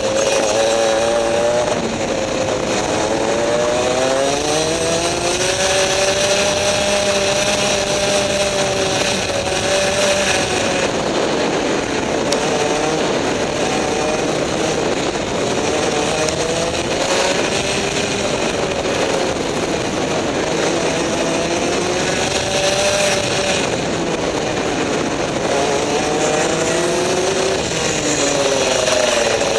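Rotax two-stroke kart engine at racing speed. Its pitch climbs on the straights and drops as the driver lifts for corners, rising and falling over and over.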